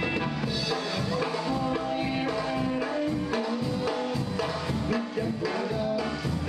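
Dance music with a steady beat, instruments holding long notes over the rhythm.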